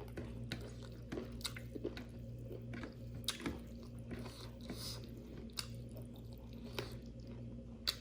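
Close-miked chewing of a mouthful of local chicken curry: wet mouth sounds with scattered sharp smacks and clicks.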